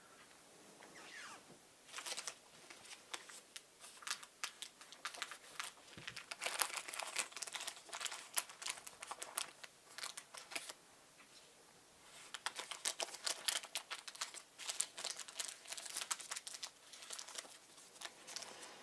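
Plastic crinkling with small sharp clicks in two long spells, the first from about two seconds in and the second after a short pause near the middle, as small parts are handled.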